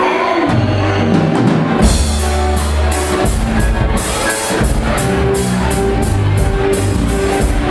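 Live rock band playing through the PA on guitars, keyboard and drum kit; about two seconds in the full drum beat comes in, with bass drum and a steady run of cymbal strokes under the guitars.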